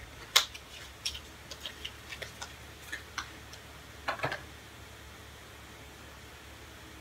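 A small cardboard box being worked open by hand and a roll of washi tape taken out: a sharp click, scattered light ticks and taps, and a short cluster of taps about four seconds in.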